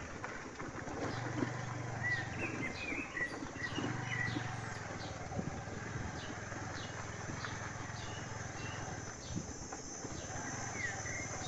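Motorcycle engine running at low speed over a bumpy dirt track, with knocks from the bumps and birds chirping a few times.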